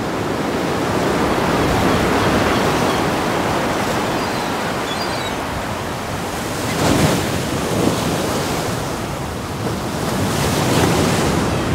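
Sea surf washing in over a rocky shore: a steady rush of breaking water that swells and eases, with a sharper splash about seven seconds in.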